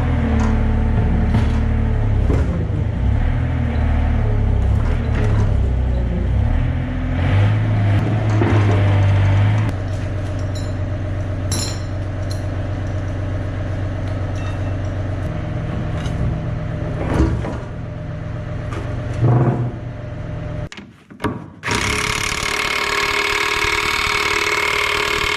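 A motor or engine running steadily, dropping a little in level about ten seconds in, then cutting off. After a short break, a brighter, hissing machine sound with a steady high tone runs near the end.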